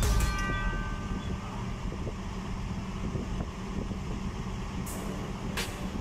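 Heavy equipment diesel engines running steadily, a crawler excavator and a wheel loader, making a continuous low drone. A couple of sharp clanks come near the end.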